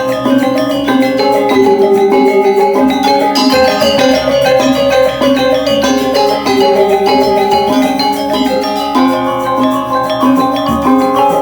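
Balinese gamelan music for the Rejang Dedari dance: metallophones playing a dense, quickly moving melody of ringing metal notes.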